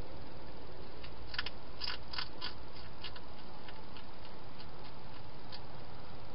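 Wild hedgehog eating inside a plastic feeding box: a run of sharp crunching clicks, about three a second, that starts about a second in, is loudest at first and then tails off, over a steady hiss.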